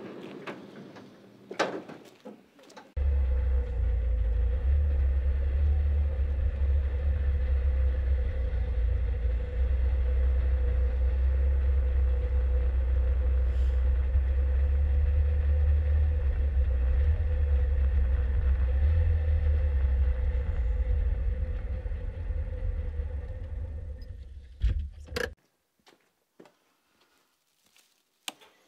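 Engine and road noise inside a small old car's cabin while it is driven: a loud, steady low rumble with a faint steady hum. It starts abruptly about three seconds in and cuts off abruptly near the end, after a couple of knocks at the start.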